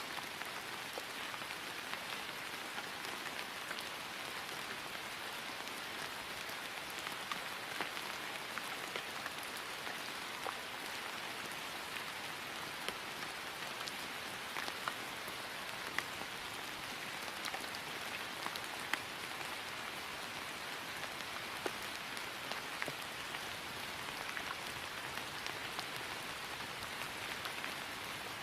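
Steady rain falling on grass, an even hiss with scattered individual drops ticking through it.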